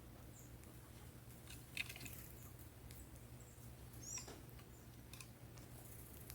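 Faint small-bird sounds over a steady low hum: a few soft clicks near two seconds in and one short, high, falling chirp about four seconds in.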